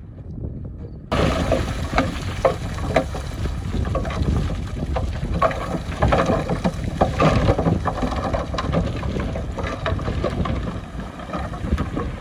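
Heavy earthmoving machinery working: a low engine rumble with repeated clanks and knocks, and wind buffeting the microphone. It cuts in abruptly about a second in, after a quieter, duller stretch.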